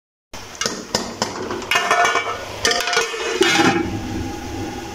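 Clinks and knocks of a metal lid being handled and set on a metal cooking pot, with brief ringing between the knocks.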